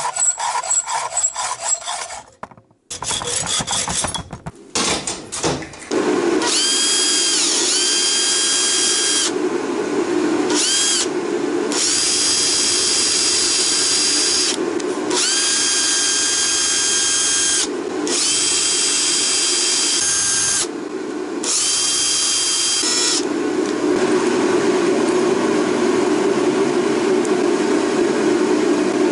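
A hacksaw cutting through steel threaded rod in a vise with a few rhythmic strokes, then a power drill running in bursts of several seconds with short pauses between, its whine rising each time it spins up. For the last several seconds there is a steady, rougher tool sound without the whine.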